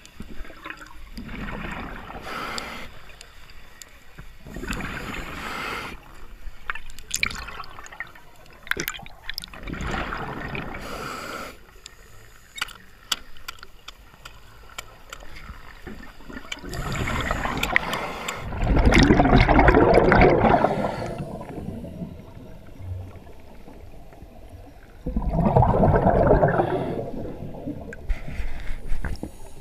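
Scuba regulator breathing heard underwater through a camera housing: a run of breaths, each a hiss followed by bubbling exhaust, with two longer, louder bubbling exhalations in the second half.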